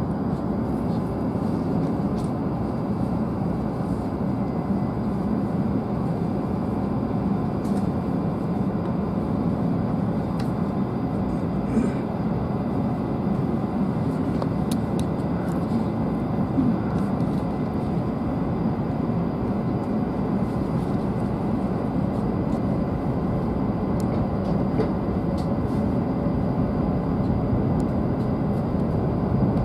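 Steady running noise of a W7 series Shinkansen heard inside the passenger cabin, a constant low rumble with a few faint ticks.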